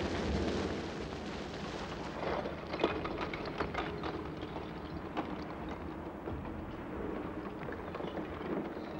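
Rushing hiss of water jets and steam on hot lava, then, from about two seconds in, the crackling and clattering of an advancing lava flow front, with sharp irregular cracks over a steady rumble.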